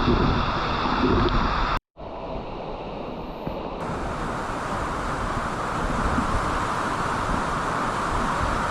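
Waterfall pouring into a pool, a steady rush of water. About two seconds in it cuts out for an instant, comes back duller for a couple of seconds, then the full rush returns.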